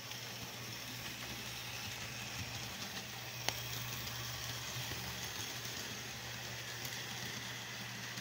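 Model passenger train running on a layout: a steady rolling noise of its motor and wheels on the track over a low hum, with one sharp click about three and a half seconds in.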